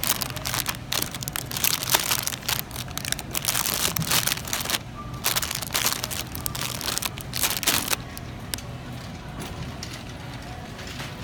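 Clear plastic bags of candy corn crinkling and crackling as they are handled, in dense bursts that stop about three-quarters of the way through, leaving a faint low hum.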